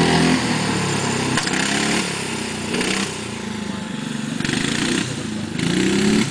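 Small petrol engine of a home-built motorised bath running as it drives, its revs rising and falling. It is loudest at first, quieter in the middle as the bath moves away, and louder again near the end.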